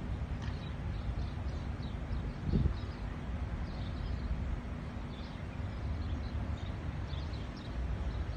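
Wind rumbling on the phone's microphone, with a louder gust about two and a half seconds in, while small birds chirp over and over in the background.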